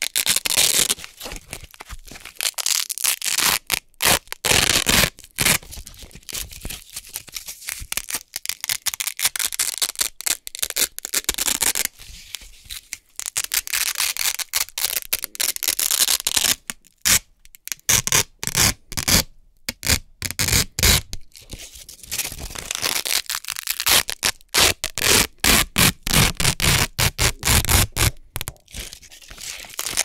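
Hook-and-loop (Velcro) fastener strips being ripped apart by hand over and over, a crisp, crunchy tearing. The rips come in quick runs broken by short pauses.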